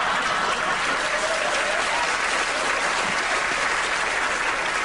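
Studio audience applauding steadily, a dense wash of clapping after a punchline.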